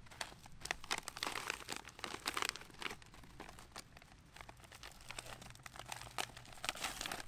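A Mountain House freeze-dried meal pouch crinkling in the hands as it is handled, then torn open across the top near the end.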